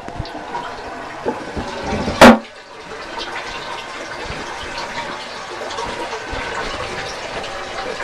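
1972 Norris-Thermador toilet flushing: a steady rush of water through the bowl and tank, with one brief loud thump about two seconds in.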